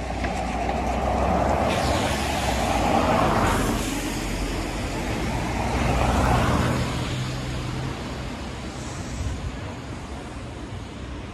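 Two cars passing close by on a wet road, one after the other, their tyres hissing on the wet surface as each goes by, over a steady low rumble of city traffic.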